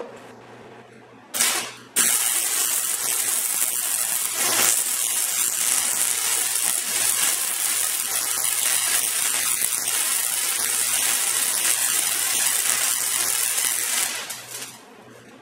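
MIG welder arc crackling: a brief strike of under a second, then one continuous bead of steady sizzling crackle for about twelve seconds that stops near the end.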